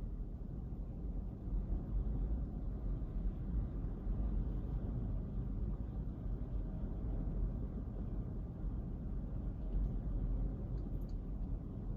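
Steady low rumble of wind and breaking surf on the camera microphone at a beach, with a few faint ticks near the end.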